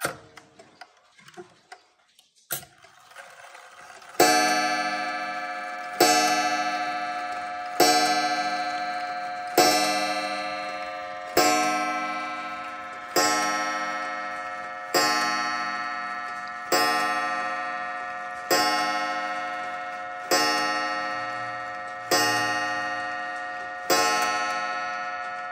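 Kassel 31-day wall clock striking twelve on its coil gong: twelve evenly spaced strokes just under two seconds apart, each ringing on and fading away, beginning about four seconds in after a few light clicks.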